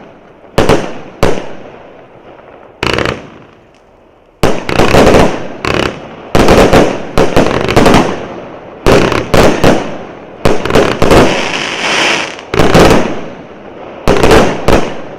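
A 128-shot, 0.8-inch firework cake firing a rapid series of shots and bursts. It starts with a few separate bangs, goes briefly quieter, then from about four seconds in fires dense, overlapping volleys.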